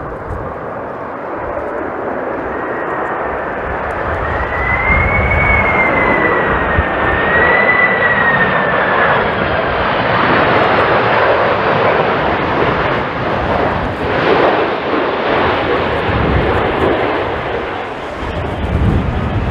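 Jet airliner passing close on approach: a high engine whine that wavers up and down, then a loud engine roar that builds to a peak around the middle and slowly eases off.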